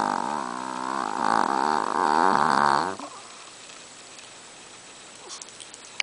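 Chihuahua snoring in deep sleep: one long snore with a wavering pitch that stops abruptly about three seconds in.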